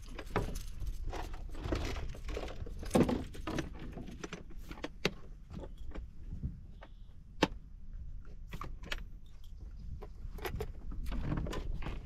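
Light metallic clicks and rattles of fishing tackle being handled in a boat, with a couple of sharper knocks, one about three seconds in and another past seven seconds, over a low steady rumble.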